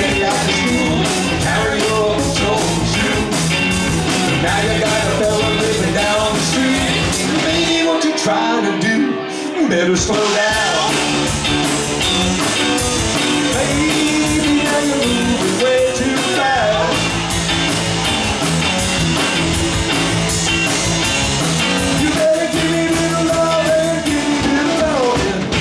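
Live rock band playing: electric guitars, electric bass and drum kit with a lead vocal. Near the middle the drums and bass drop out for about two seconds, leaving guitar and voice, then the full band comes back in.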